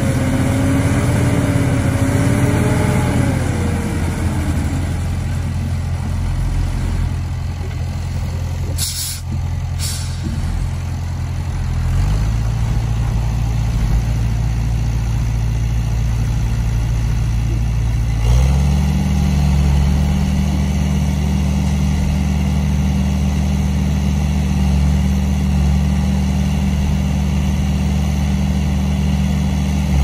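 Heavy diesel engine running steadily, with two short hisses about nine seconds in. The engine note steps up in pitch a little past the halfway point.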